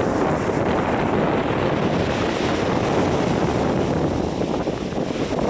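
Strong wind buffeting the microphone in a steady rumble, over the rush of rough sea surf breaking on the shore.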